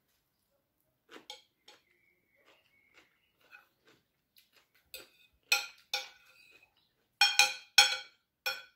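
Metal fork and spoon clinking and scraping against a ceramic dinner plate: faint taps at first, then several sharp, ringing clinks in the second half as food is cut on the plate.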